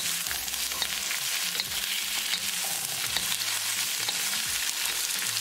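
Sliced bell peppers and onion sizzling in hot oil in a nonstick wok as a wooden spatula stirs them, with scattered light scrapes and taps of the spatula against the pan.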